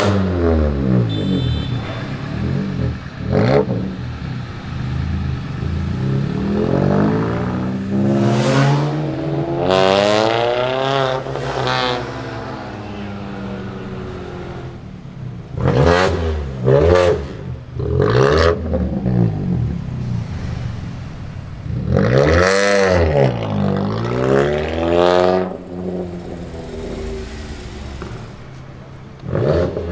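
Mini with a straight-pipe exhaust revving repeatedly: a loud, raw exhaust note that sweeps up and down in pitch, with several sharp blips and longer rising and falling revs.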